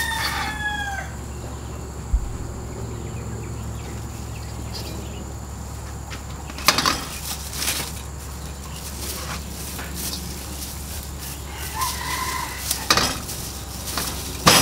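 A rooster crowing, the call falling in pitch and ending about a second in, with a brief second call near 12 seconds. A few sharp knocks of the steel wok being handled, around 7 and 13 seconds in.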